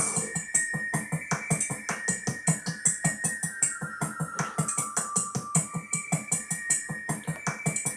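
A song with a fast, steady drum-machine beat and synthesizer tones.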